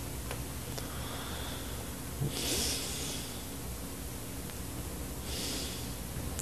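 Steady hiss and low hum from an old narration recording, with two soft breaths about two and a half and five and a half seconds in.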